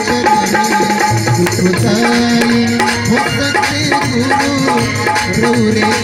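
Live Indian devotional stage music: a harmonium and keyboard melody over fast hand percussion, with one note held for about a second in the middle.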